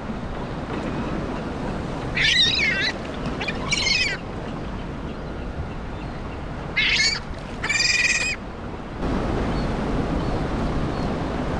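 Seabird calling in four harsh squawks, two about two to four seconds in and two more about seven to eight seconds in, over steady wind and water noise.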